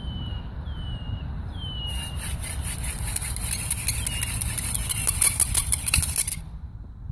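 Hand drill in use: a mullein spindle spun back and forth between the palms in a willow hearth board, giving a rapid scraping hiss of hands and wood that starts about two seconds in and stops about six seconds in. Before it, a bird's falling whistled call repeats about once a second over a steady low rumble.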